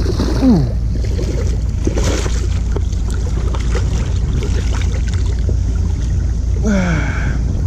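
Steady low rumble of wind buffeting the microphone. A short falling vocal sound comes about half a second in and again near the end.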